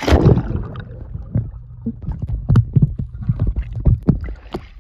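Splash of a person jumping feet-first into a swimming pool, loudest right at the start. It is followed by the low churning rumble and popping of bubbles, heard with the microphone under the water.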